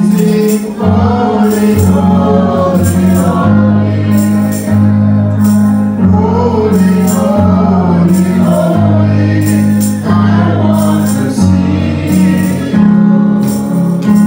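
Gospel music: voices singing a melody over steady bass notes, with a regular high-pitched beat of percussion.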